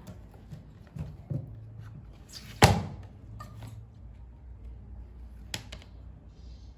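Knocks and slaps of a large hardcover picture book being handled by a baby monkey: a couple of light knocks about a second in, one sharp loud slap about two and a half seconds in, and another knock about five and a half seconds in.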